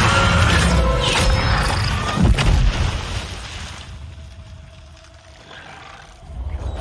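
Monster-film soundtrack: a dramatic score mixed with a giant centipede creature's cries and heavy sound effects. A sharp, heavy thud comes about two seconds in, then everything dies away to quieter music, with a short swell near the end.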